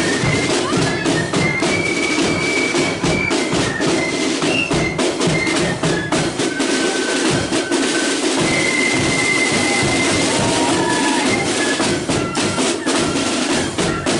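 A marching flute band plays a tune. Flutes carry the melody in held high notes over a steady beat of side drums and bass drum.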